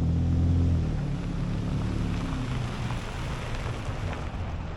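Toyota Tacoma pickup driving on a dirt road: a steady engine hum under a rushing wash of tyre and road noise. The engine note is strongest at first and eases off after a couple of seconds.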